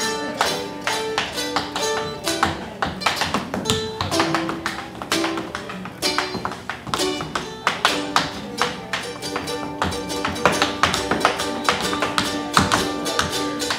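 Tap shoes striking the floor in quick, rhythmic runs of taps over a guitar playing an instrumental passage of a song.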